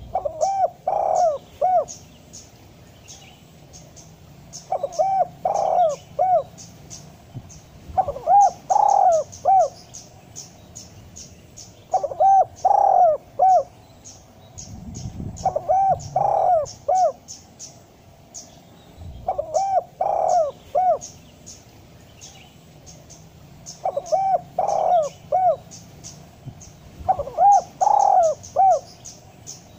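Spotted dove (tekukur) cooing: a phrase of four or five low, rounded coos, repeated about every four seconds. Thin, short, high chirps run steadily underneath.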